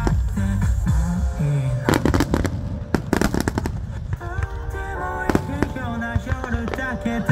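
Aerial firework shells bursting in a string of sharp bangs, several clustered about two and three seconds in, over a low rumble, with music playing along.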